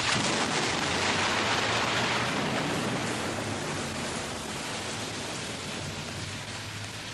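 Steady rushing hiss of noise that starts suddenly and slowly fades, with a faint low hum beneath it.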